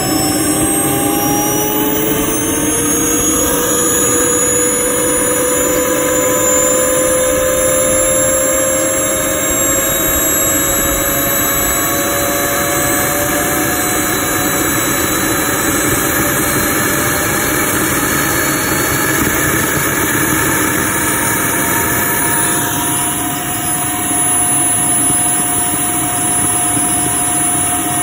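JetCentral Rabbit 100 model turbine engine spooling up in its start sequence toward idle. A high whine rises slowly in pitch over a steady rushing roar, and the pitch levels off near the end.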